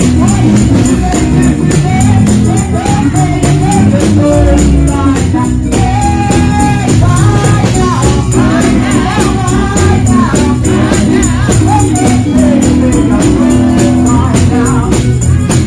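Gospel song: a group of voices singing a melody over a band with a steady, driving beat.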